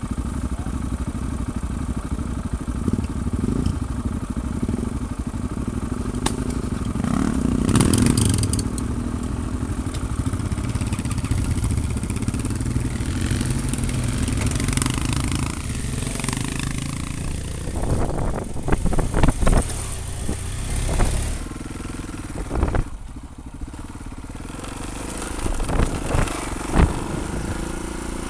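Adventure motorcycle engines running: the Yamaha Ténéré 660's single-cylinder engine idling while other bikes pull away up a dirt trail. Short knocks and clatter come in the second half.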